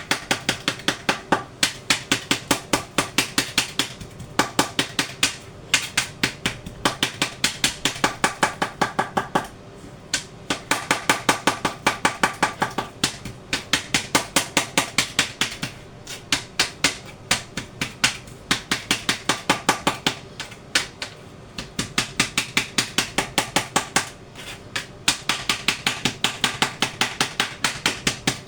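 Kitchen knife chopping on a chopping board, in quick runs of sharp knocks about four a second, broken by short pauses.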